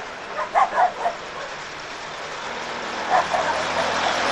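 Motor vehicles passing on the road: engine hum and tyre noise that grow louder toward the end. A dog barks in short bursts during the first second and again about three seconds in.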